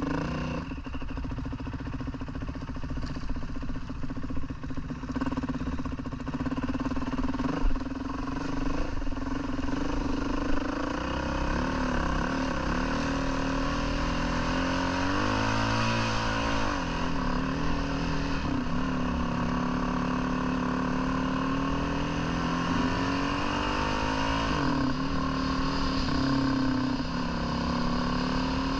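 Dirt bike engine running while being ridden, its revs rising and falling a couple of times.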